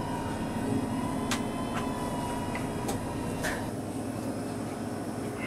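Steady equipment hum with a thin high whine that stops about three and a half seconds in, and a few faint clicks.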